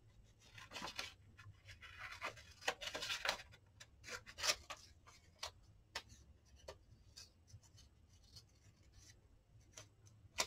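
Paper pieces being handled and slid on a craft mat: faint rustles and swishes in the first half, then scattered light taps and clicks, with a sharper click near the end.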